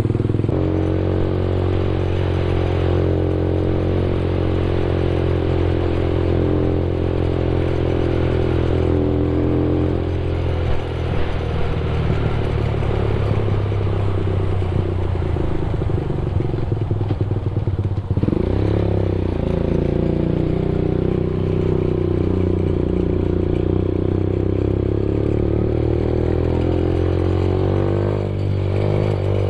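Benelli TNT 15's 148cc air-cooled single-cylinder four-stroke engine running under way through an aftermarket exhaust with the silencer removed, a bit noisy. The engine note holds mostly steady, dips and climbs again about eighteen seconds in, and shifts once more near the end.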